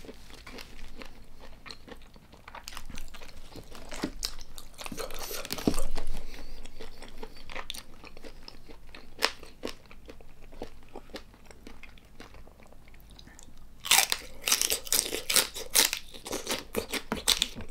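Close-miked, wet mouth-closed chewing with scattered sharp clicks. Near the end, a run of loud, crisp crunches as a raw celery stalk is bitten and chewed.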